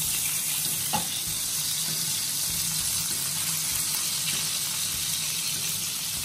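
Two ribeye steaks sizzling in hot fat in a frying pan with garlic and rosemary while being spoon-basted, a steady crackling hiss. One short metallic clink of the basting spoon against the pan about a second in.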